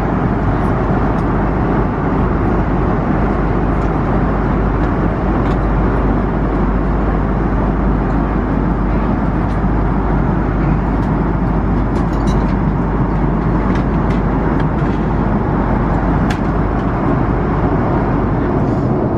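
Steady cabin noise of an Airbus A330-300 in cruise: a dense, even rush of airflow and engines, with a few faint light clicks.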